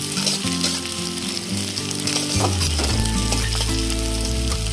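Chopped onions frying in hot mustard oil in a metal kadai, a steady sizzle, with the pieces being stirred around the pan.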